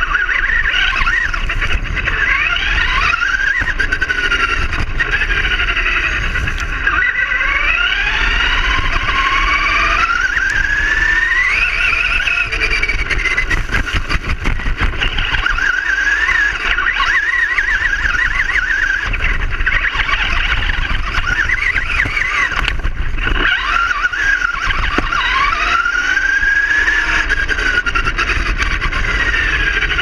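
Traxxas Rustler RC car's motor and drivetrain whining, the pitch rising and falling again and again as the throttle changes, over a steady low rumble from the wheels and the ride.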